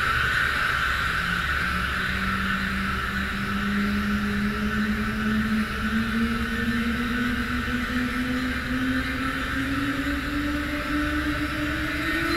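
Electronic music from modular synthesizers and a theremin: a steady noisy drone, with a clear tone rising slowly and smoothly in pitch throughout.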